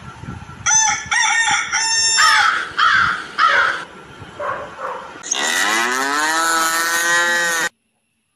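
Chickens clucking and squawking in a string of short calls, then a rooster crowing once in a long call that cuts off abruptly near the end.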